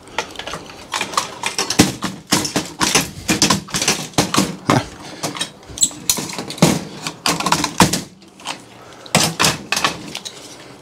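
Irregular knocks and clicks of metal and plastic parts being handled and pulled apart while dismantling a display monitor for scrap, with a short lull about three-quarters of the way through.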